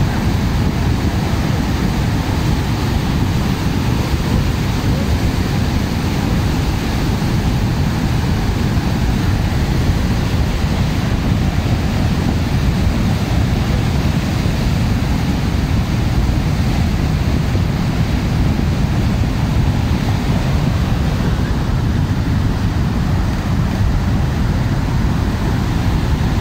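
Hot volcanic mudflow (lahar) rushing down a river channel: a steady, loud rushing noise, heaviest in the low end.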